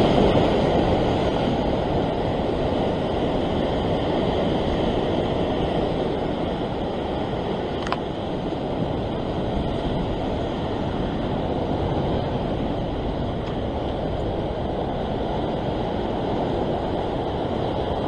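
Big ocean waves breaking and washing over coastal rocks: a steady churning rush of surf, a little louder at the start and then settling. One faint short click about eight seconds in.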